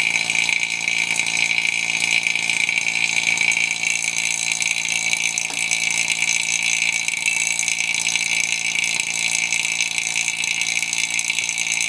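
Electric vacuum pump running steadily: a hum with a strong high whine. It is pulling vacuum on a chamber to degas silicone rubber.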